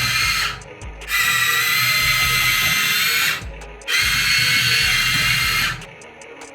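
Geared electric motors of a Huina 1593 1/14-scale RC excavator whining in three runs. The whine stops briefly about half a second in and again past the three-second mark, then cuts off near the end.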